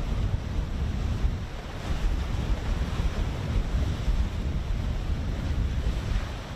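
Wind buffeting the microphone over the sound of open sea: a steady low rush that swells and dips unevenly.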